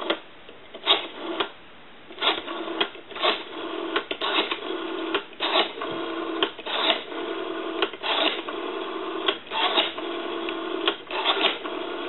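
Rotary dial of a Western Electric 500 desk telephone being pulled round and let spin back, digit after digit, with its clicking and rattling returns. A steady buzz-like tone sounds on the line beneath the dial clicks from about two seconds in.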